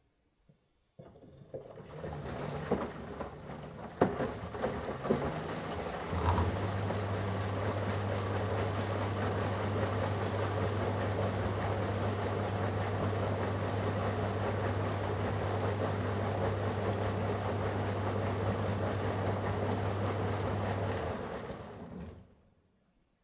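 Washing machine running: water sloshing with a few knocks, then about six seconds in a steady low motor hum joins the rushing water. Both fade out about a second before the end.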